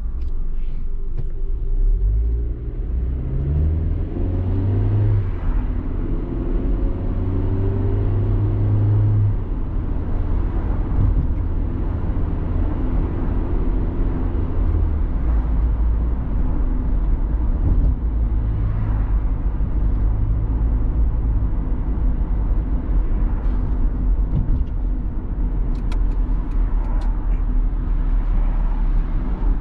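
Car engine and road rumble heard from inside the cabin while driving, with the engine note climbing in steps as the car accelerates early on and again later.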